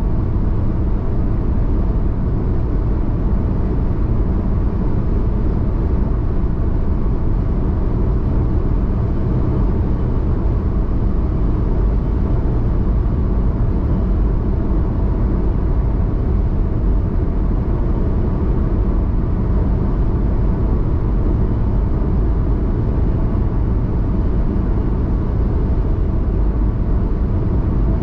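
A car cruising at highway speed, heard from inside the cabin: a steady low drone of tyre and engine noise.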